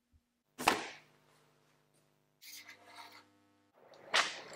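Paper instruction booklets and a cardboard box being handled on a table: a sharp slap just over half a second in, a brief rustle around the middle, and another slap near the end.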